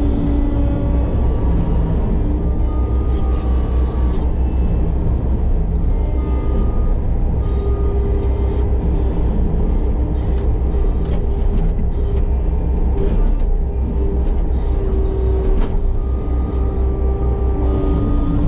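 Case compact track loader's diesel engine and hydraulics running steadily under load while driving a Fecon forestry mulching head: a loud, constant low drone with a whine that steps up and down in pitch every few seconds.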